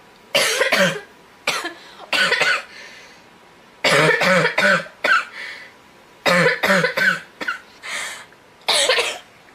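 A girl coughing in a run of short bouts of one to four sharp coughs each, with brief pauses between them.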